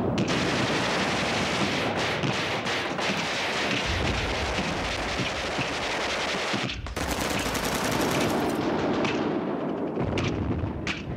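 Heavy, continuous automatic gunfire in combat, with a short break about seven seconds in.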